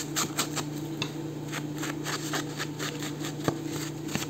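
Ink being dabbed and rubbed onto the edge of a paper page: a run of quick, soft taps and scuffs, several a second, irregular in spacing.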